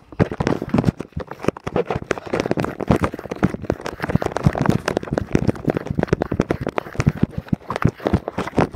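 Handling noise from a phone held in the hand while the holder moves about: a dense, irregular stream of knocks, scrapes and rustles right on the microphone.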